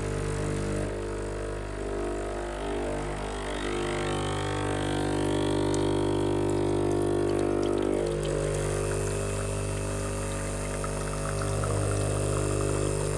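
Sage espresso machine running with a steady buzzing drone, slightly louder in the middle.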